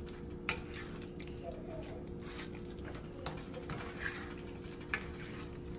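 Boiled potatoes with heavy cream being mashed by hand with a utensil: soft wet squishing with irregular clicks and taps of the utensil, about a handful over a few seconds.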